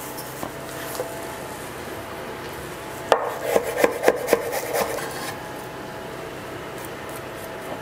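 A knife chopping fresh dill on a wooden cutting board. About three seconds in there is a quick run of knife strokes lasting about two seconds.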